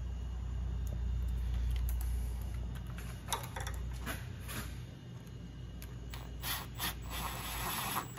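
A DeWalt 12V MAX cordless impact driver on a long socket extension starts running a wheel speed sensor's hold-down bolt in near the end. Before that come a few light metallic clicks of the extension and socket being handled.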